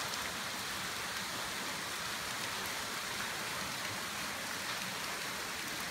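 Steady, even rush and splash of falling water, like heavy rain, with no change throughout.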